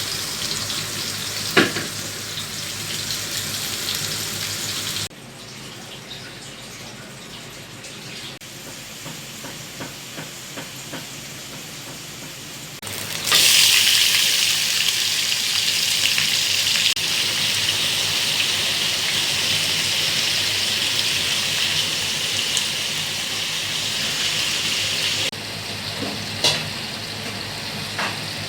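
Garlic shrimps sizzling in a pan, in several cut shots. The sizzle drops quieter about five seconds in and jumps much louder at about thirteen seconds. Sharp knocks come about two seconds in and again near the end.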